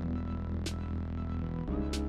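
Background music of steady sustained chords with two sharp percussion hits; the chord changes near the end.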